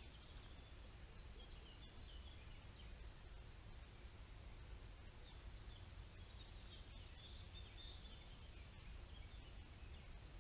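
Faint outdoor quiet with scattered, thin bird chirps and short trills, over a steady low rumble.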